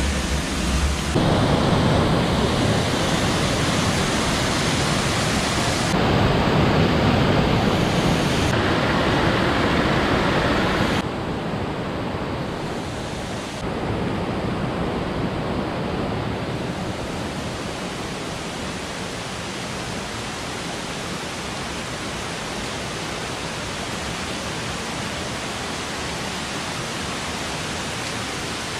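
Rushing water of a rocky jungle stream and waterfall, a steady loud wash of noise. It changes abruptly in level and tone several times in the first half, then settles steadier and a little quieter.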